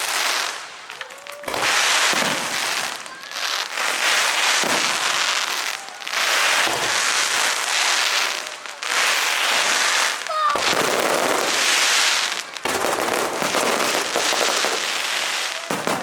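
Fireworks going off: dense crackling runs of bursts in waves of one to three seconds, each broken by a brief lull, with a faint short whistle or two among them.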